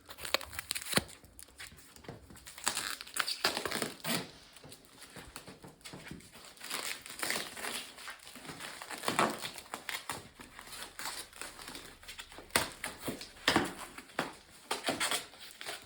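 Packaging crinkling and rustling as it is handled, with uneven crackles and scrunches.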